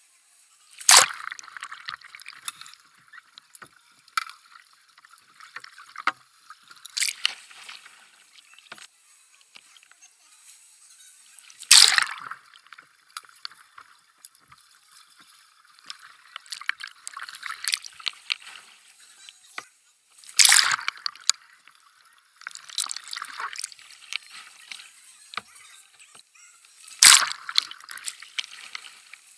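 Pool water splashing and sloshing around a kayak as it capsizes and rolls back upright again and again, with five sharp splashes spaced about five to eight seconds apart and running, trickling water between them.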